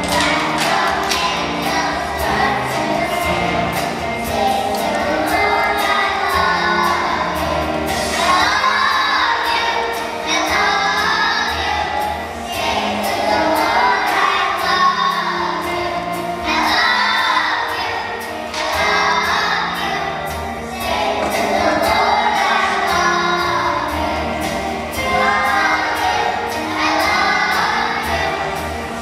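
A young children's choir singing a song together over a musical accompaniment.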